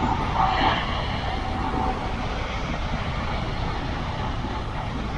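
Steady wind rumbling on the microphone over the wash of breaking surf.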